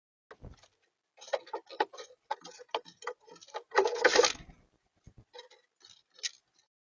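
Fast, irregular tapping and clicking of an animal feeding at a bird feeder, picked up close by the feeder's built-in camera microphone, with a louder, denser flurry about four seconds in.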